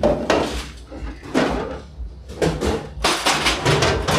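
Commercial kitchen clatter: a run of short knocks and clanks from plates and trays being handled and set down on the counters, busiest in the last second.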